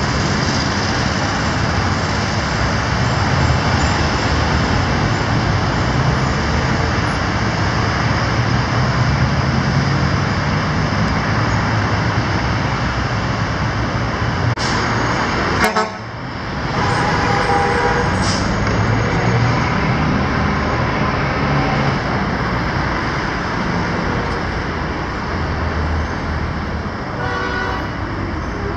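Steady road traffic on a busy multi-lane avenue, cars and trucks passing. A car horn sounds a little past halfway, with a shorter honk near the end.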